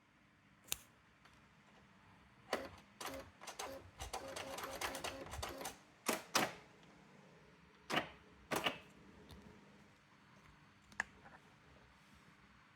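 Brother AX-425 electronic typewriter clattering: scattered single clicks and knocks, with a quick run of rapid clicks about four to six seconds in.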